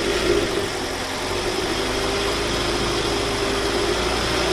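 Hyundai Grand i10 engine held at raised revs, about 2000 rpm, running steadily at an even pitch. The crankshaft knock being tested for is no longer heard, which the mechanic takes as the fault being cured.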